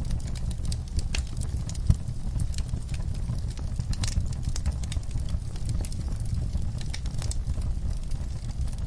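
Log fire crackling: irregular sharp pops and snaps over a steady low rumble, with one louder pop about two seconds in.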